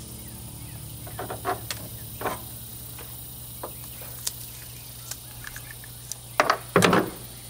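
Kitchen shears snipping through a skinned rabbit carcass: a scatter of short sharp snips, then two louder cuts near the end, over a steady low hum.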